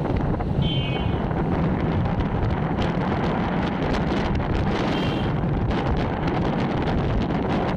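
Wind buffeting the microphone over a steady rumble of street traffic, with two brief high-pitched tones, about a second in and again around five seconds.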